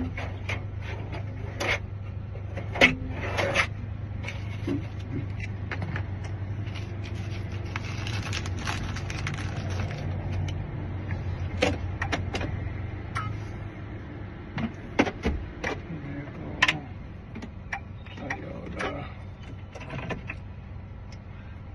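Scattered small metal clicks and taps as a car door lock cylinder is handled and worked with a thin shim, over a steady low hum that fades about two-thirds of the way through.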